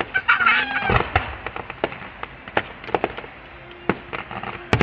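Fireworks going off in a scattered series of sharp pops and bangs, with a brief high-pitched voice calling out about half a second in.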